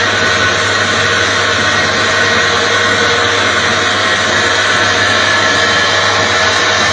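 A lotus-seed coring machine, which drills the green embryo out of lotus seeds, running steadily: a constant motor whir with a few faint steady tones in it.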